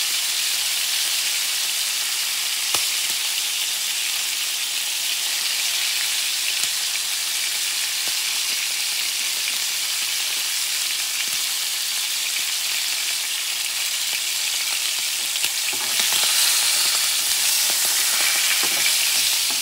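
Slices of bison heart with grated garlic sizzling in hot olive oil in a frying pan, a steady hiss that grows louder near the end.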